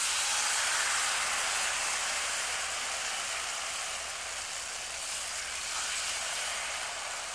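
Pancake batter sizzling in hot butter on a large flat griddle pan (muurinpohjapannu) as it is ladled on: a steady hiss that eases slightly as the batter sets.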